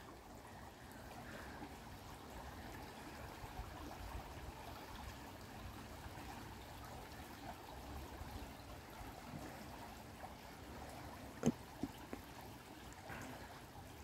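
Small stream flowing and trickling, a faint steady rush of water. A single short click near the end.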